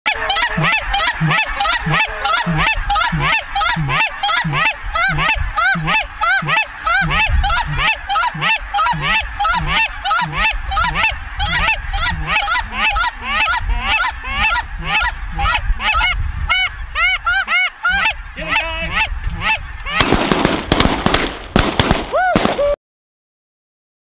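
A huge flock of geese calling overhead: a dense, continuous chorus of honks. About twenty seconds in, a loud rushing noise covers the calls, then the sound cuts off abruptly a second before the end.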